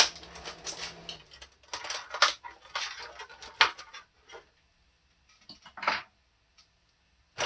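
Clear plastic packaging tray crinkling and clicking as an action figure is worked free of it and its rubber bands. The handling is busy for the first few seconds, then turns to a few scattered clicks, with one louder click about six seconds in.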